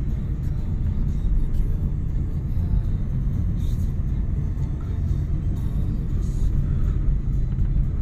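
Steady, low rumble of a car's engine and tyres on the road, heard from inside the cabin while driving.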